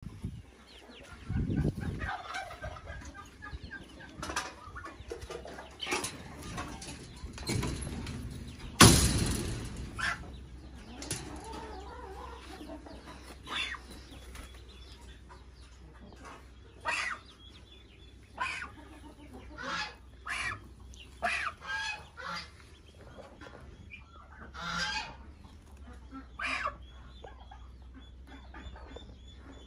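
Farmyard fowl giving short, separate calls again and again, with a faint, rapid high peeping of Pekin ducklings near the end. Two loud thumps come early, the loudest about nine seconds in.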